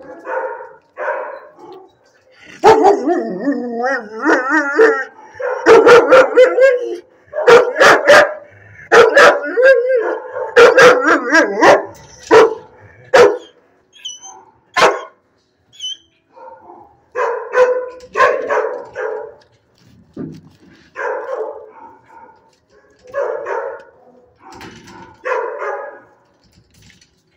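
A shelter dog barking over and over, loud and rapid through the middle, then fewer and quieter barks near the end.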